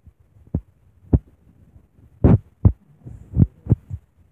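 A series of about six dull thumps, irregularly spaced, with no speech between them.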